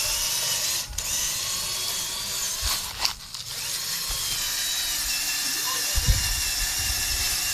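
Small electric motor and gears whirring steadily with a high, slightly wavering whine, dropping out briefly twice in the first few seconds.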